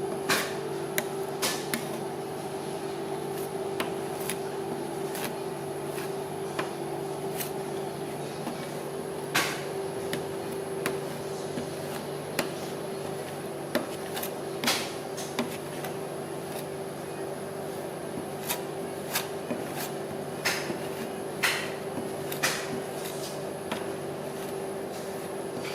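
Metal spatulas tapping and scraping on a rolled-ice-cream cold plate, sharp clacks coming irregularly about once a second, over a steady machine hum.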